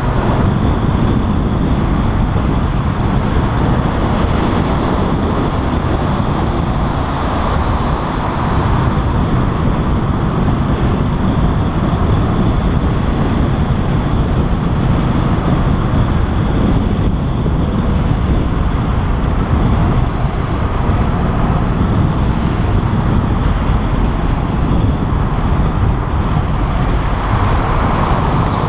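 Ducati motorcycle ridden slowly between lanes of heavy traffic, picked up from a camera on the bike: a steady mix of engine and road noise with the surrounding cars and trucks.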